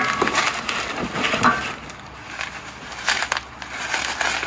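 Plastic wrapping crinkling and rustling in irregular flurries as a wrapped exhaust pipe is handled and lifted out of a cardboard box, with a sharp knock right at the start.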